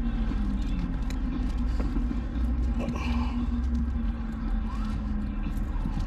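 A steady engine drone with a low rumble, its pitch drifting slowly lower, and a few light clicks.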